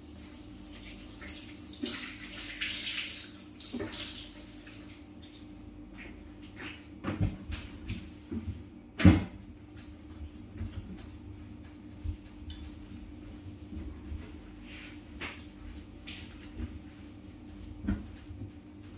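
Hand-washing dishes at a kitchen sink: the tap runs for a few seconds near the start, then dishes clink and knock against the sink, the loudest knock about nine seconds in. A steady low hum runs underneath.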